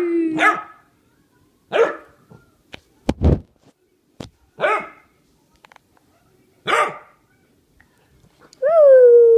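Small dogs barking in play, with short single barks spaced a couple of seconds apart and a thump about three seconds in. Near the end comes a long call that slides down in pitch.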